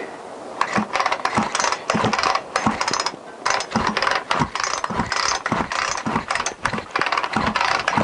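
Oregon petrol chainsaw's recoil starter being pulled over and over with the spark plug out, the starter ratcheting and the engine spinning over freely in a run of quick clattering strokes, during a spark test that shows the plug is sparking.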